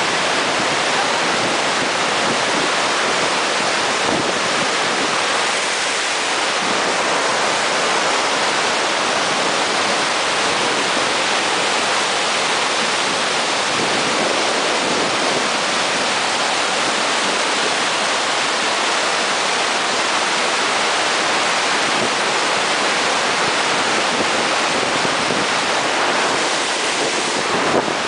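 Waterfall and whitewater creek rushing over granite boulders: a loud, steady rush of falling water.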